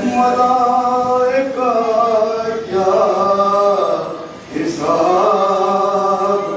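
Men chanting a Muharram lament (noha) with no instruments, a lead voice on a microphone and others singing along. The notes are long and held, with a short break for breath a little past the middle.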